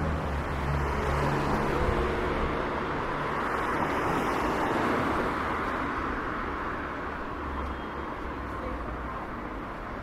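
City street traffic: a motor vehicle passes, its noise swelling over the first few seconds and fading after about halfway, over a low steady hum.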